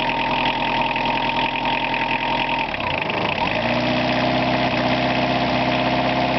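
1978 VW Golf Mk1 four-cylinder diesel engine idling in its first minutes after a cold start. About three seconds in the engine speed dips, then it settles into a steady, lower idle.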